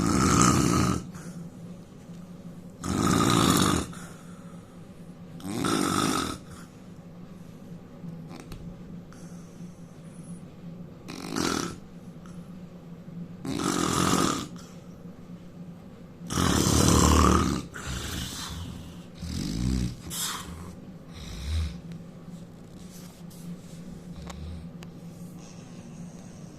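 A man snoring loudly, one snore every few seconds; after about eighteen seconds the snores turn shorter and weaker and then die away. A steady low hum runs underneath.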